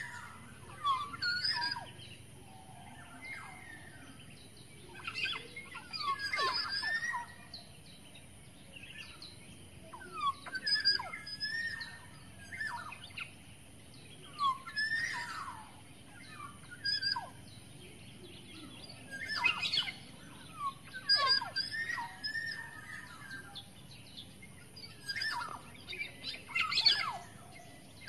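Black-naped oriole (kepodang) calling: short phrases of sweeping, slurred whistled notes, some of them harsh, repeated every second or two.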